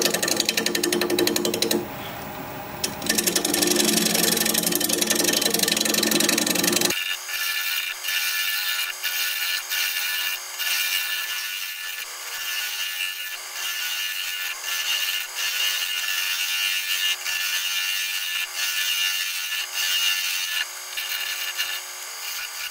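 Bowl gouge cutting very hard, dense red mallee burl spinning on a wood lathe, a continuous scraping cut over the lathe's running. About seven seconds in the sound abruptly turns thinner and higher-pitched, with faint ticks, as the light smoothing cut goes on.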